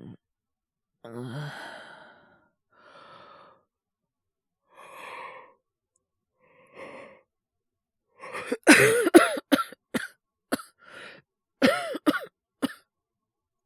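A young man's voice makes soft breaths and sighs, then about eight seconds in breaks into a fit of about a dozen coughs in quick succession. It is acted coughing of someone sick with a cold.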